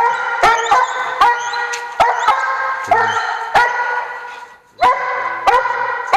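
A trailing dog barking repeatedly, about ten loud barks at a steady pace, with a short break past the middle.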